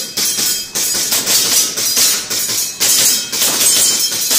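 Airsoft pistol firing a rapid string of shots, about three a second, each a sharp crack with a short hissing tail.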